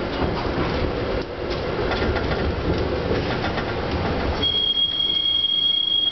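A TTC CLRV streetcar rolling along its track, heard from inside the car: a steady rumble with frequent clicks from the wheels. About four seconds in, the steel wheels start a loud, high, steady squeal against the rails.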